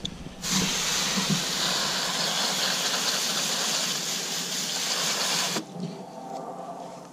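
Garden hose pistol-grip spray nozzle spraying water onto a piece of raw chicken to rinse it: a steady hiss that starts about half a second in and cuts off suddenly after about five seconds.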